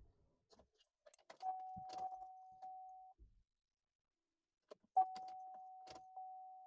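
Ignition key clicking and jangling, then an electronic warning chime sounding two steady beeps at one pitch, the second longer and starting about five seconds in. No engine cranking follows: the Enclave will not turn over, which the mechanic puts down to a failing battery and a bad starter.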